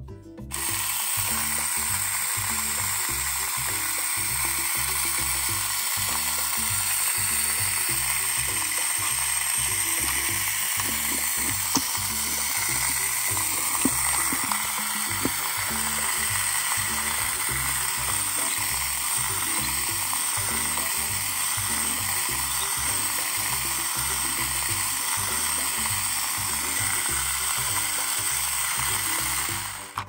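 Battery-powered toy vacuum cleaner running: its small motor and fan whir steadily, switched on about half a second in and off just before the end.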